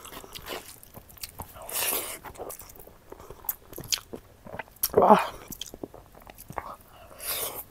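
Close-miked eating: wet chewing, lip smacks and small crunchy bites in a steady scatter of clicks, with an appreciative "wah" about five seconds in.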